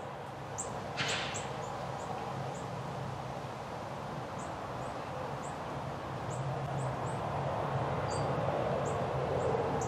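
Front-load garbage truck's diesel engine running steadily, a little louder in the second half as the truck moves off, with a short hiss about a second in. Brief high bird chirps come and go over it.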